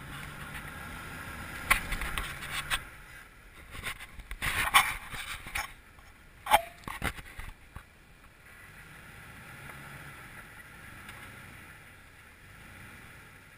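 Jeep Wrangler engine running at a low crawl as the tyres and underside scrape and knock against sandstone ledges, with a few sharp knocks in the first half and one loud clank about six and a half seconds in.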